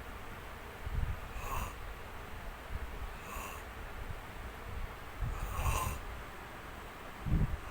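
A person snoring: low rumbling snores about every two seconds, each of the first three followed by a short airy breath, the loudest snore near the end.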